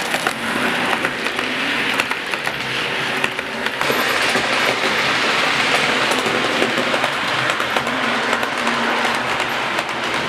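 00 gauge model steam locomotive and coaches running on the track: a steady whirring rush from the motor and wheels, with many small clicks from the wheels passing over rail joints.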